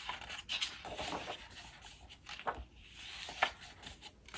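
Paper rustling as the pages of a planner are handled and turned, with a few light ticks and taps.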